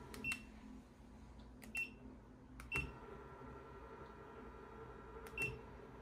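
Four button presses on the Mcbazel electric turntable's remote control, each a sharp click followed by a brief high beep as the turntable acknowledges the command. A faint steady hum runs underneath.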